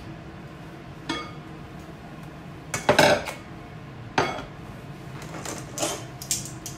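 Metal pot lid and kitchenware knocking and clattering on a sink counter: a few separate knocks, one with a short metallic ring about a second in, the loudest clatter about three seconds in, and lighter clicks near the end.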